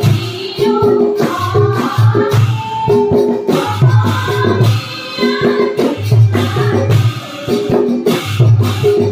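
A women's group singing Assamese dihanaam, a devotional chant, in unison. They clap along, and a double-headed barrel drum beats a steady repeating rhythm underneath.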